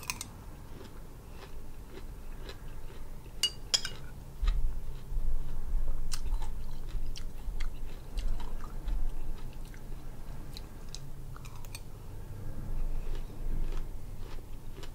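Close-miked chewing of mouthfuls of pomegranate seeds, heaviest from about four seconds in. A few sharp clinks of a metal spoon against the glass bowl come in the first four seconds.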